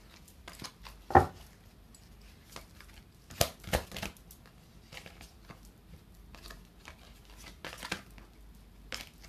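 Tarot cards being handled and shuffled by hand: cards sliding and rustling against each other, with scattered sharp card snaps and taps. The loudest snap comes about a second in, with a cluster around three and a half to four seconds and more near the end.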